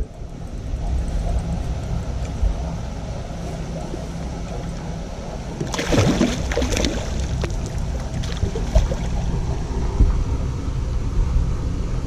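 A hooked spotted bass thrashing and splashing at the surface about six seconds in, over a steady low hum.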